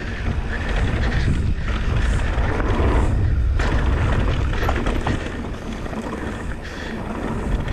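Wind rumbling on the microphone and tyres running over a dirt trail as a Canyon Spectral 29 mountain bike is ridden at speed, with a few knocks and rattles from the bike over rough ground.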